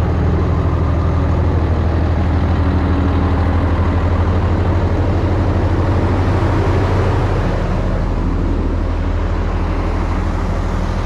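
Komatsu D65 bulldozer's diesel engine running steadily under load, easing off slightly about two-thirds of the way in.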